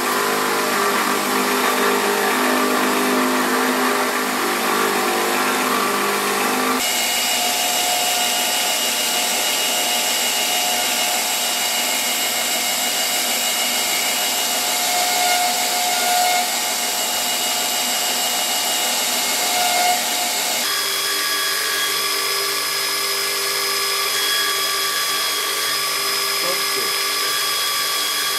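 Belt grinder running, its abrasive belt grinding a steel knife blade: a steady, loud rasp with high steady tones over it. The sound changes abruptly twice, about 7 and 21 seconds in.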